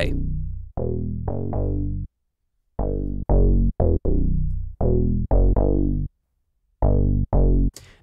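Serum software synth bass patch, a digital spectral wavetable layered with a saw wave and a square sub oscillator, playing a bass line of short notes in three phrases. Each note starts bright and quickly turns duller as the low-pass filter closes, and with filter key tracking on, the filter opens further on the higher notes.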